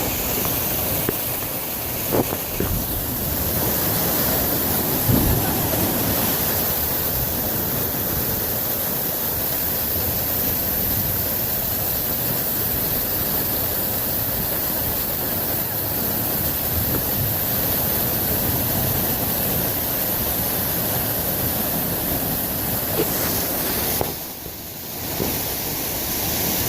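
Water rushing steadily, an even wash of noise, with a couple of faint knocks in the first few seconds and a brief drop in level near the end.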